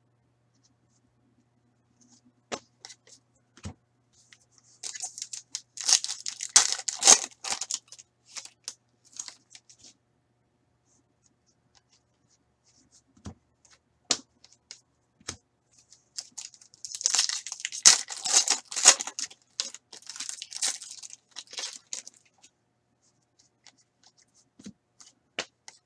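Trading-card pack wrappers being torn open and crinkled in two spells, the first about five seconds in and the second about seventeen seconds in. A few short clicks and snaps of card handling come before, between and after them.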